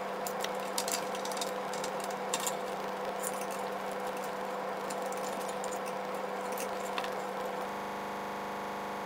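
Plastic zip ties being handled and looped through a plastic frame, giving scattered light clicks and rattles over a steady hum.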